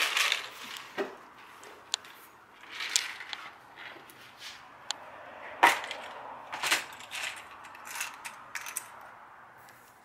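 Scattered clicks and rattles of a plastic assortment box of automotive blade fuses being handled and opened, the small fuses shifting inside.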